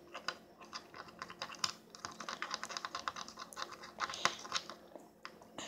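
A toothpick and small clear plastic container of shampoo being handled: quick, irregular clicks and taps against the plastic, with a louder knock about four seconds in.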